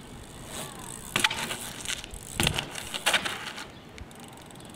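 BMX bike on asphalt, with three loud sharp scrapes or knocks about one, two and a half and three seconds in as the rider moves and turns it.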